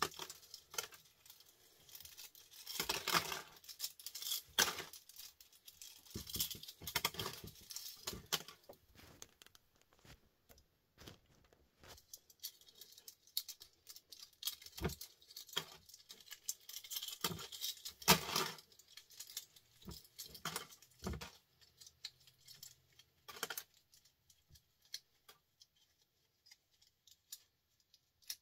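Small scrap electrical transformers handled in gloved hands over a plastic tub, making irregular clinks, rattles and scrapes of metal and plastic parts. The handling is busy at first and grows sparser near the end.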